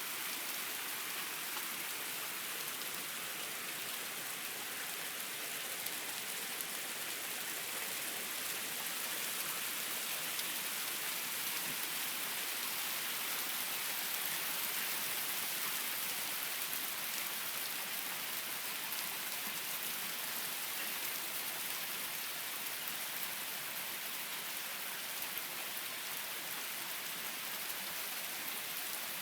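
Hail coming down steadily: an even, dense hiss of falling stones, flecked with tiny ticks of single hailstones striking.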